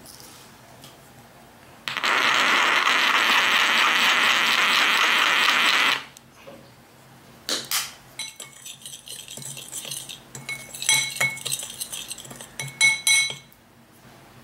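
McCormick black peppercorn grinder twisted for about four seconds, a steady grinding noise as pepper falls into the bowl. After that, a metal spoon clinks and scrapes against a ceramic bowl, mixing the seasoning.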